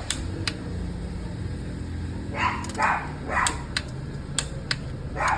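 A dog barking several times in short bursts from about two seconds in, over a steady low hum, with a few sharp clicks in between.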